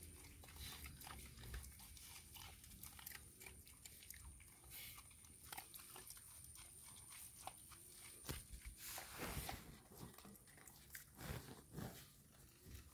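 Dogs chewing dry kibble: faint, irregular crunching and biting, with a few louder rustling noises near the end.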